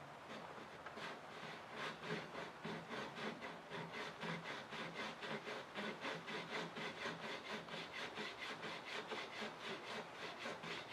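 Handsaw cutting a shallow kerf along a wooden dowel, a steady back-and-forth stroke at about three strokes a second. The saw is set to a fixed depth of cut and follows an already-started kerf, cutting the groove for the bench dog's spring wire.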